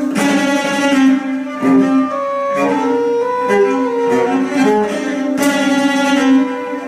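Cello and organetto playing together: held steady tones under bowed cello notes, with several sharp, forceful attacks.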